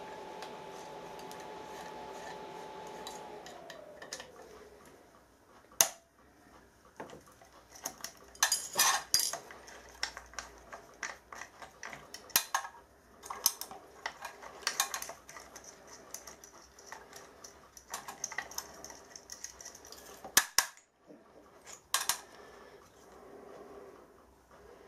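Milling machine spindle running with a steady whine, then winding down in pitch and stopping about four seconds in after being switched off. It is followed by scattered metallic clanks and clicks as a metal workpiece and its clamps are handled on the machine table.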